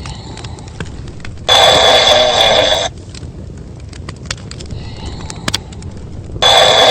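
Cartoon snoring sound effect: a loud snore lasting about a second and a half, twice, about five seconds apart, with fainter breathing sounds between.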